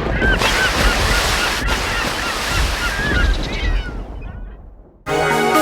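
Many birds calling in short honking calls over a loud rushing roar with a low rumble, all fading out about four seconds in. Music starts just before the end.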